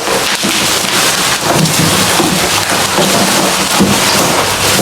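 Heavy rain: a steady, dense hiss with no break, carrying on under the talk before and after.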